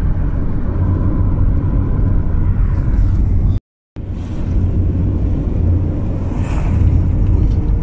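Steady road and engine rumble heard from inside a moving car, with a brief total dropout about three and a half seconds in.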